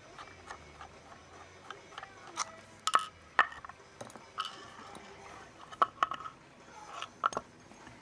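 Irregular sharp metal clicks and taps as a brass Carbine padlock is taken apart by hand, with its cylinder plug and follower handled and set down in a pinning tray. The loudest clicks come about three seconds in.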